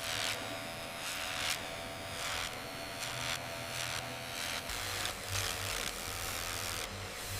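A steady machine hum carrying a few held tones, with short hissing swishes that recur irregularly about once or twice a second.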